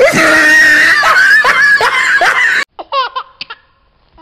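Laughter sound effect: a loud, dense burst of laughter that cuts off suddenly about two and a half seconds in, followed by a few short, high giggles that fall in pitch.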